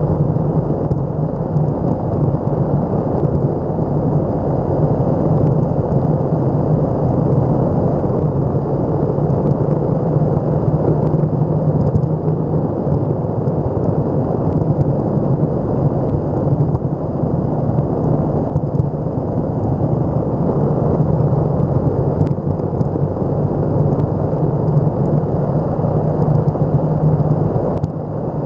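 Steady low rumble of an electric skateboard rolling on pavement at speed, mixed with wind noise on the microphone.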